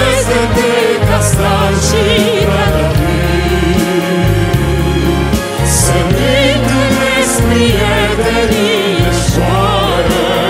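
Live symphony orchestra accompanying a woman and a male vocal quartet singing a romantic ballad, the voices wavering with vibrato over a steady low string and bass accompaniment.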